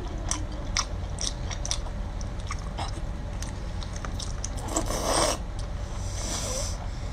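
Close-up eating sounds: a person chewing and sucking on chewy octopus coated in chili oil, with wet, sticky mouth clicks throughout. Two longer slurps come about five and six seconds in.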